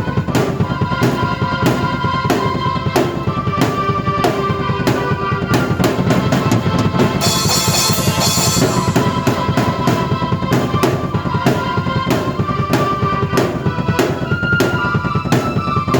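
Drum kit and keyboard played together in an up-tempo instrumental: a steady, dense beat of bass drum and snare under sustained keyboard notes. About seven seconds in, a cymbal wash rings for a second or two.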